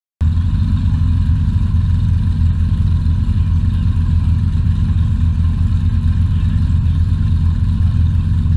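Car engines idling at the starting line, a steady low rumble that cuts in abruptly just after the start.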